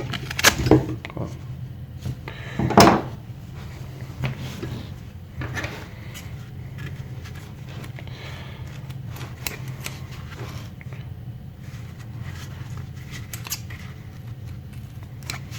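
Trauma shears working at thick belt or hose material, with two sharp snaps in the first three seconds and then faint clicks and rubbing as the blades chew at it. The shears are failing to cut through.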